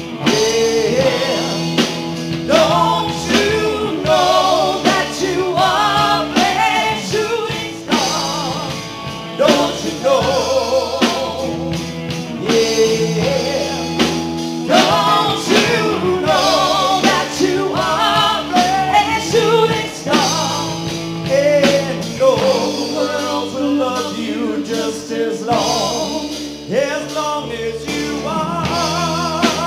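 Live rock band playing a rock and roll song loudly on electric guitars with drums, with singing over it.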